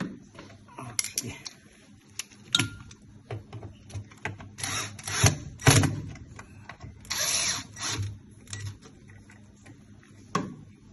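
Irregular clicks, knocks and short scraping rattles of tools and plastic parts being handled while a replacement drain motor is fitted to a washing machine, loudest about halfway through.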